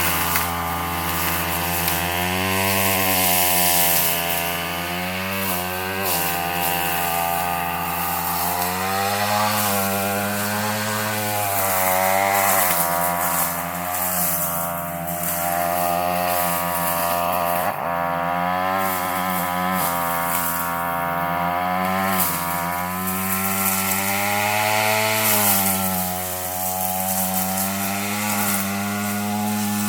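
Gas weed eater's two-stroke engine running hard while its blade attachment cuts through heavy brush, the revs repeatedly rising and dipping.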